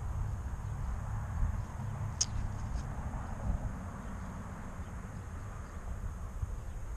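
Wind buffeting the microphone of a camera lying in the grass: a steady, fluttering low rumble, with one faint short high tick about two seconds in.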